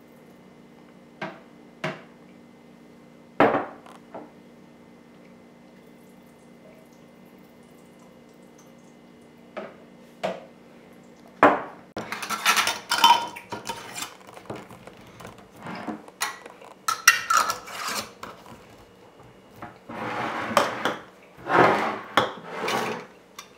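A few separate knocks over a low steady hum, then from about halfway a dense run of metal-on-glass clinks and scrapes as metal Ball mason-jar lids and screw bands are set on and screwed down onto glass jars.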